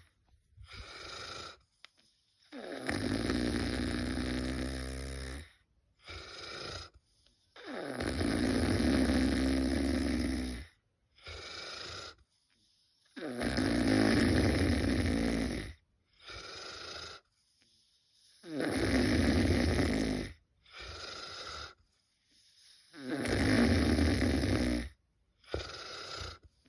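Very loud snoring in a steady breathing rhythm, about every five seconds. Long, loud snores of two to three seconds alternate with shorter, quieter ones of about a second.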